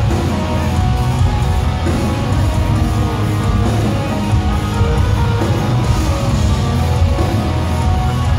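A post-black metal band playing live, heard from the crowd: loud distorted electric guitars over drums, with a heavy low end.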